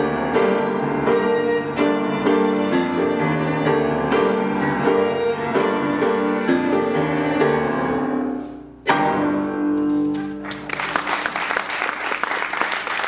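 Violin, cello and piano trio playing the close of a tango. The music dies away, then a sharp accented final chord just before nine seconds rings out briefly, and the audience bursts into applause.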